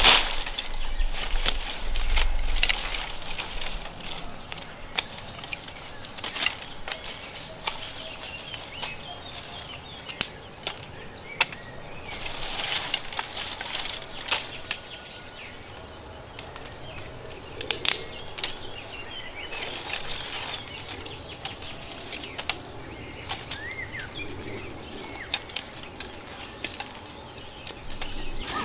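Irregular clicks, knocks and rustling, like gear being handled outdoors, with a light hiss of background noise and a few brief bird chirps a little past the middle.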